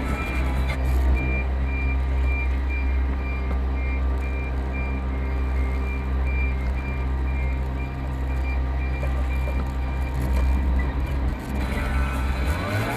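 Truck's reversing alarm beeping at an even rate over the low rumble of its engine as it backs up. The beeping stops about a second before the end.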